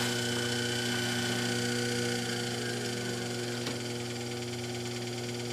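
Treadmill DC motor running steadily on rectified AC from a variac, giving a steady electrical hum.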